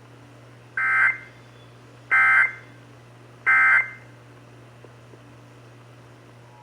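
Emergency Alert System end-of-message (EOM) data tones: three short, shrill bursts of digital SAME data, each about a third of a second, spaced about 1.3 seconds apart, signalling that the alert message is over. A faint steady low hum runs underneath.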